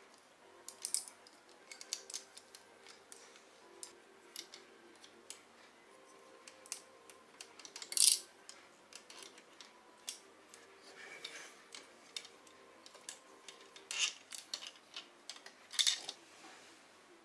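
LEGO plastic parts clicking and rattling as a brick-built mech's joints and limbs are handled and posed. Many small clicks, with a sharper snap about halfway through and two more near the end.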